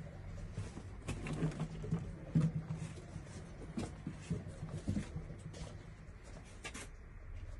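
A Californian rabbit shifting and turning on a fabric mat: soft scattered taps and rustles over a low steady hum.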